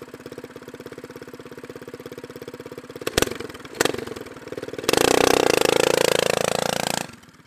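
Go-kart's Predator 212 single-cylinder engine idling with a fast, steady putter, two sharp clicks a little past three seconds in, then revving hard with rising pitch for about two seconds before cutting off suddenly.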